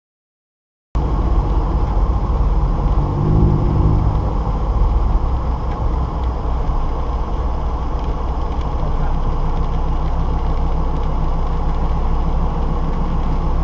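Inside the cabin of a Subaru BRZ: its flat-four engine and the car's running noise give a steady low rumble, cutting in abruptly about a second in.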